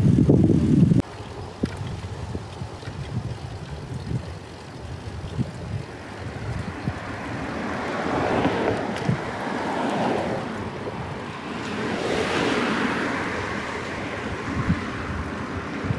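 Cars passing on the road beside a bicycle, with their tyre noise swelling and fading twice. At the start a loud low rumble of wind on the microphone cuts off abruptly about a second in.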